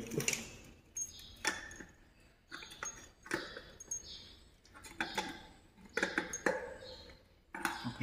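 Pliers clicking and scraping on the metal nut and bolt as a ceiling fan's downrod nut is tightened: irregular metallic taps, one every half second to a second, some with a short ring.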